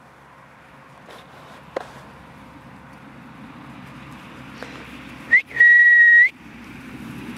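A short rising chirp, then one steady high whistle held for under a second near the end: a recall whistle calling the puppies in.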